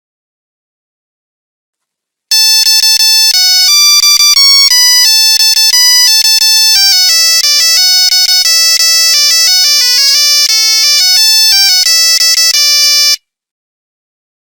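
Nokia 3310 monophonic ringtone: a one-note-at-a-time electronic beeping melody of quick steps in pitch, starting about two seconds in and cutting off abruptly near the end.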